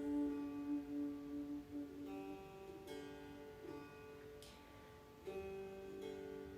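Slow meditative music on a plucked string instrument, with long ringing notes that fade out and a fresh note plucked every second or so.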